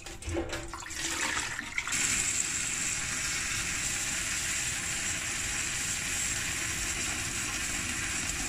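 Water splashing as a hand swishes sea moss around in a metal bowl. About two seconds in, it gives way to a steady stream of tap water pouring into the bowl, filling it to cover the moss for soaking.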